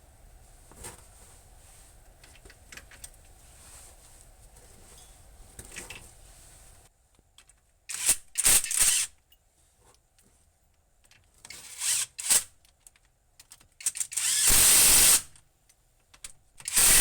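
Power tool driving in the hub assembly bolts, in several loud bursts of about a second each. Before them come faint clicks and handling noise.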